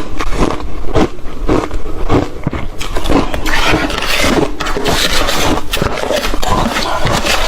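Ice being bitten and chewed close to the microphone: a fast, irregular run of loud crunches, several a second.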